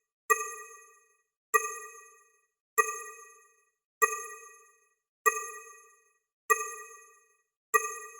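A bell struck seven times at an even pace, about one strike every one and a quarter seconds, always on the same pitch. Each ring fades out within about a second.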